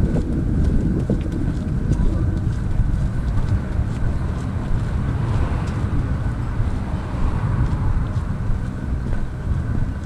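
Wind buffeting an action camera's microphone outdoors, a steady low rumble with faint voices in the background.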